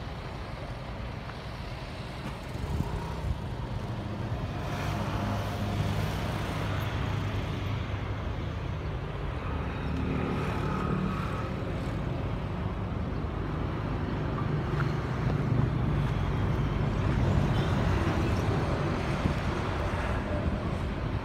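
Hyundai three-axle dump truck's diesel engine idling steadily.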